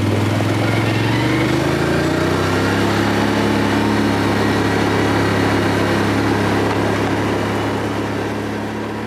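Can-Am ATV engine under way on a dirt trail, rising in pitch as it accelerates over the first couple of seconds, then running at a steady speed and easing off slightly near the end.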